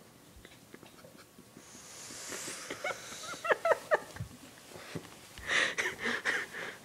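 A man snoring: a rasping breath builds over a couple of seconds and breaks into a few short, squeaky, wheezing tones. A louder burst of breathy noise follows near the end.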